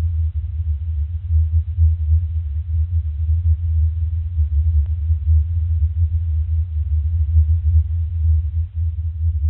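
A recording of the Hum: a low, steady humming rumble that wavers slightly in loudness, a drone reported in places like Taos and Bristol whose origin remains unexplained.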